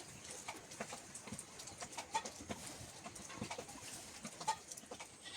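Three short bird calls about two seconds apart, faint, over scattered light clicks.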